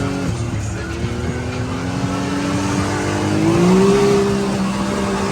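Can-Am Maverick X3 Max side-by-side under way, its engine pitch climbing slowly as it accelerates, then stepping up higher about three and a half seconds in, where it is loudest, over steady driving rumble.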